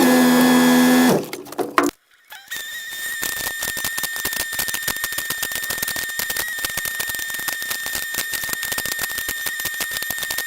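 Heavy machinery running steadily: a dense, fast rattle with a steady high whine, of the kind an excavator's diesel engine and hydraulics make. It starts after a short lull about two seconds in; before that, a different steady pitched sound cuts off about a second in.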